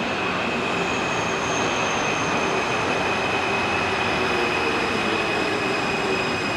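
Alstom AS-2002 metro train pulling into the station, a steady rumble with high-pitched whines held over it and a few lower tones slowly falling in pitch.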